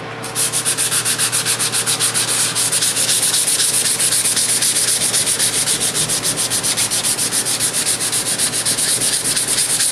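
Hand block sanding of body filler on a car's roof panel: a sanding block with sandpaper rasping back and forth in quick, even strokes, several a second. It starts a moment in.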